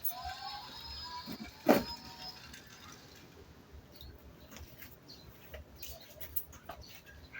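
A few short electronic tones, then one loud knock about a second and a half in, followed by scattered light clicks, from a battery-powered toy car being switched on and handled.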